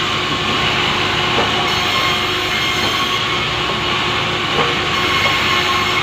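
Power saw running steadily under load while ripping lengthwise through a large pulai log, a continuous loud machine noise with a steady whine.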